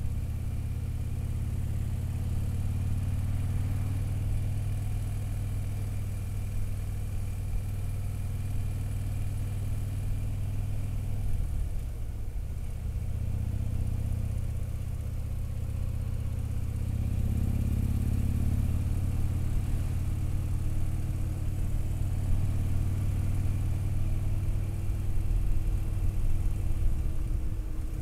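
Touring motorcycle engine running steadily at road speed with a low exhaust note. It eases off briefly about twelve seconds in and again near the end.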